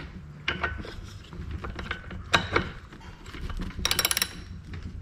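Hand tools clicking and clinking against a chainsaw's metal parts in separate sharp clicks, then a quick run of rapid clicks about four seconds in.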